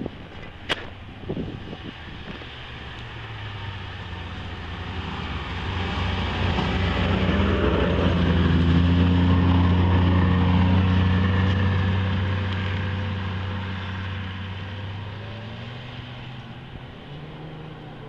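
Snowmobile engine approaching, passing close by and fading away, loudest about halfway through.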